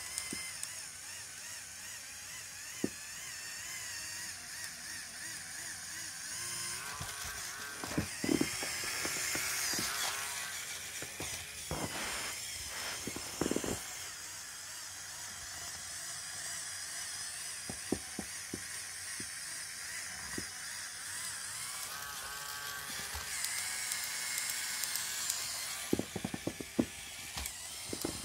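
Lego Technic 4x4 chassis's electric L motor and CVT gear train whirring steadily, the whine wavering in pitch as the load changes while it climbs. Several clusters of sharp clicks and knocks come from the gears and wheels.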